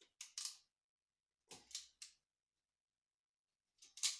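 Three short bunches of clicks and scrapes from hands working on cable wiring and small tools, with silence between them.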